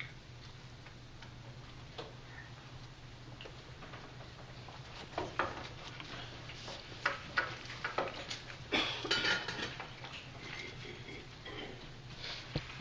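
Scattered light clicks and clinks of communion cups and trays being handled as the congregation partakes, over a steady low hum.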